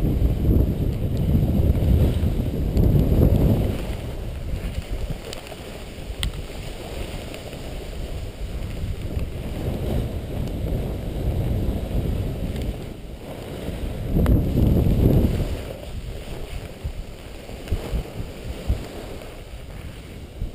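Wind rumbling on the microphone of a moving snowboarder, swelling in gusts a few times, with snow sliding under the board.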